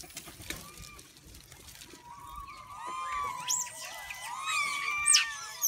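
A group of macaques calling. Several high-pitched squeaks and cries overlap from about two seconds in, with the sharpest, highest squeals a little past halfway and near the end.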